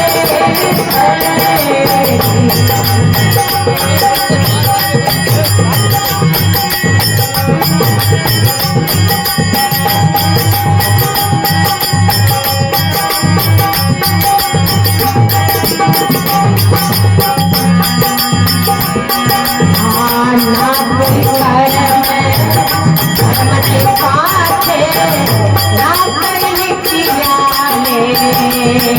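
Rajasthani devotional folk music, a mostly instrumental passage: a steady drum beat with fast, even jingling percussion over held melodic tones.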